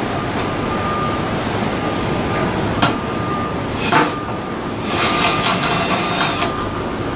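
Steady city traffic rumble, with a couple of sharp knocks from tool work on a payphone's metal housing, around the middle. Near the end a loud hiss lasts about a second and a half.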